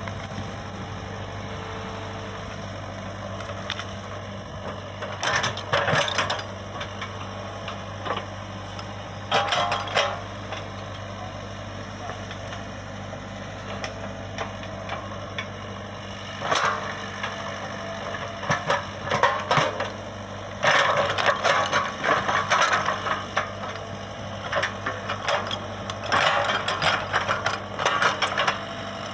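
Komatsu PC75UU mini excavator's diesel engine running steadily, with irregular bursts of mechanical clatter and rattle every few seconds.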